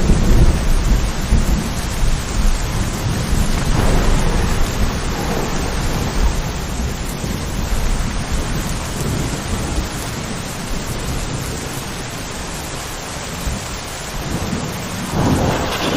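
Steady rain falling, with deep thunder rumbling at first and dying away over the first few seconds. A second swell of noise comes about a second before the end.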